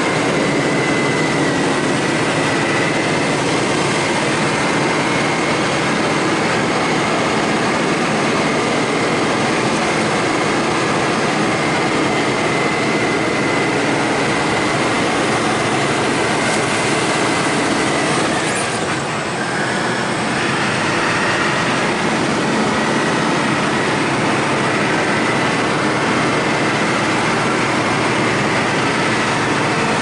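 Engine and road noise inside the cab of a heavy vehicle driving on an unpaved road, loud and steady, with a faint high whine running through it. The noise dips briefly about two-thirds of the way through.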